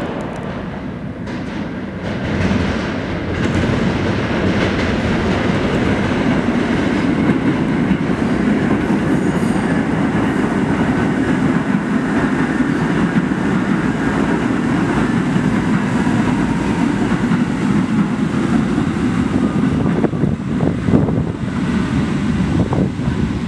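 New York City Subway train running along the tracks with a steady rumble of wheels on rail, and a few sharp clicks over rail joints near the end.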